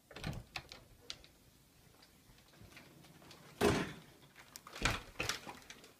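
An interior door being handled and opened: a few faint clicks in the first second, a short louder swish a little before four seconds, then a cluster of small knocks and taps around five seconds as someone comes through.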